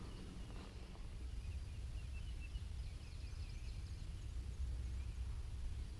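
Quiet outdoor ambience: faint scattered bird chirps over a low, steady rumble.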